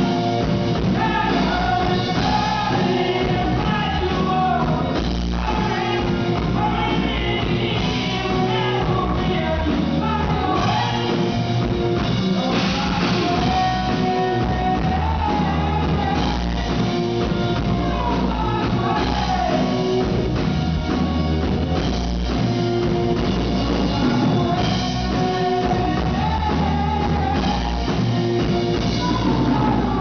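A man singing live into a microphone with a rock band playing behind him: a continuous sung melody over drums and guitar.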